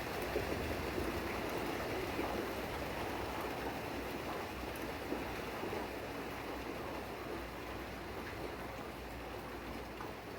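Heavy rain falling steadily, a dense hiss that eases slightly toward the end.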